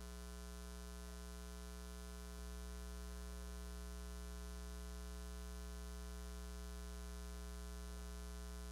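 Steady electrical mains hum from the sound system, a buzzing stack of even tones with no speech on the microphone; it gets slightly louder about two seconds in.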